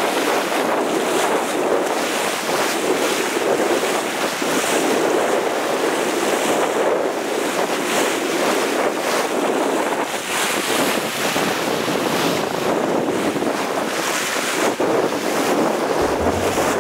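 Bow wave rushing and splashing along a sailing yacht's hull under way, with wind buffeting the microphone. The water noise is steady, with repeated brief surges of spray.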